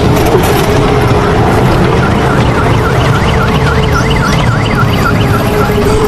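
Small electric kiddie train ride running on its track with a steady loud rumble. From about two seconds in to near the end, a rapid siren-like electronic warble repeats, about three sweeps a second.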